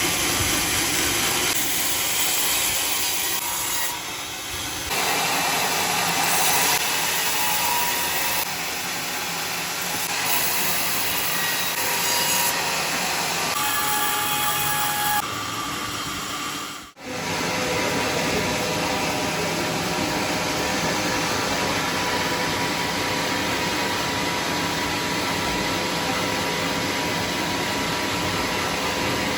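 Sawmill cutting a log of bayur wood: a saw and its motor running steadily, with a faint whine. Through the first half the sound shifts abruptly every second or two, and it drops out briefly about 17 s in before running on steadily.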